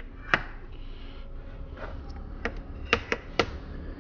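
Orange plastic screw cap on a 5-litre jug of engine oil being twisted open by hand, giving sharp plastic clicks: one near the start, then a quick run of about four clicks about two and a half seconds in.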